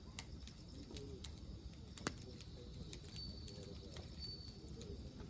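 A dove cooing softly over a low steady rumble, with scattered sharp clicks and one louder knock about two seconds in.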